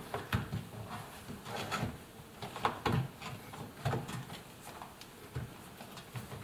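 Irregular knocks, clicks and rubbing from hands working a rubber door seal onto the drum opening of an Indesit washing machine.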